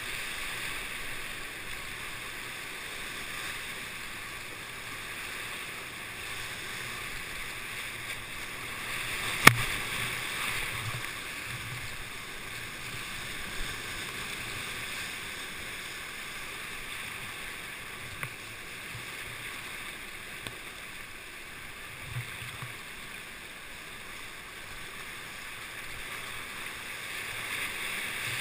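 Whitewater of a class V river rapid rushing steadily around a kayak. A single sharp knock comes about nine seconds in, and a few lighter knocks follow later.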